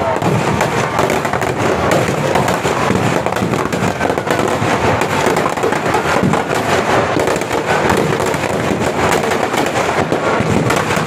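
Firecrackers packed in a burning Ravana effigy going off in a dense, continuous crackle of bangs.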